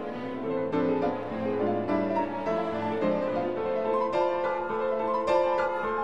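Background music: a classical-style piece led by piano, with notes changing every half second or so.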